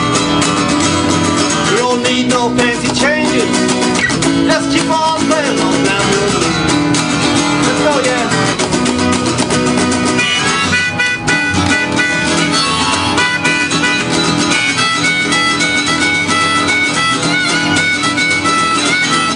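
Instrumental blues played on harmonica and guitar. There are bent, sliding notes in the first half and quick repeated high notes later on.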